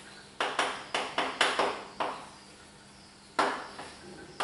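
Chalk tapping and scraping against a blackboard as words are written: a quick run of about six sharp strokes in the first two seconds, a pause, then a few more strokes near the end.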